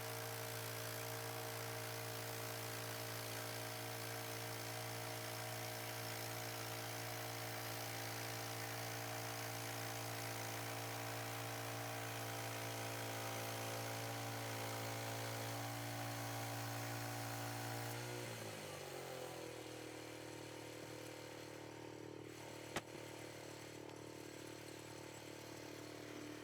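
An engine running at a steady speed, then throttled down about 18 seconds in to a lower, quieter steady speed, with a single sharp click a few seconds later.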